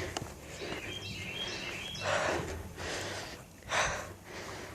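Outdoor ambience with a few short bursts of noise close to the microphone about halfway through, and faint high bird chirps.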